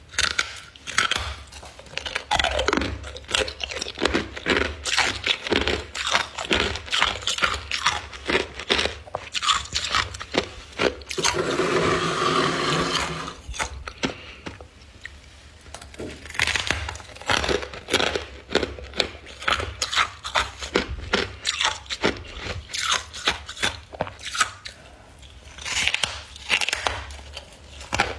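Close-up crunching of a chunk of freezer frost being bitten and chewed: a rapid run of sharp, crisp crunches, with one continuous crackling grind lasting about two seconds near the middle.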